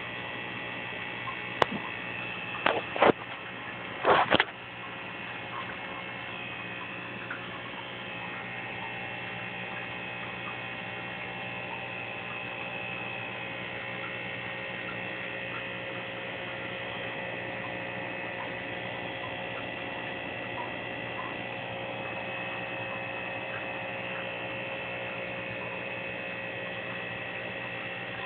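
Steady electrical hum: a low mains hum with several higher steady tones over it. A few sharp clicks and knocks come in the first few seconds.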